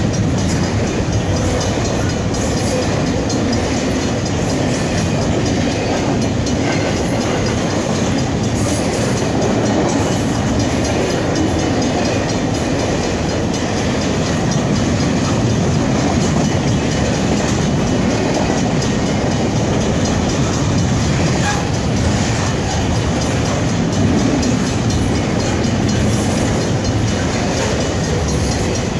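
Double-stack container well cars rolling past at a steady speed, with a continuous loud rumble of steel wheels on rail and clattering clicks as the wheels cross rail joints.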